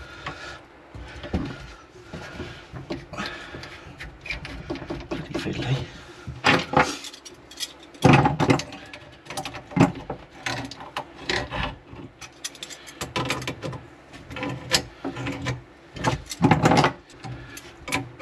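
Grips and brass plumbing fittings clicking, knocking and scraping as a double check valve is worked back into place on a water pipe and its nuts tightened. The noises come at irregular moments, loudest about eight seconds in and again near the end.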